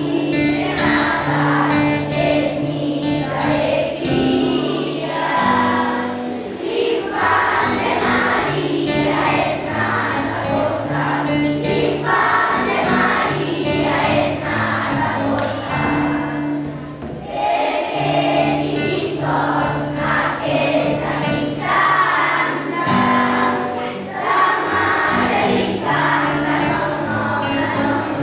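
Children's choir singing a Catalan Christmas song in unison phrases, accompanied by an acoustic guitar holding low sustained notes.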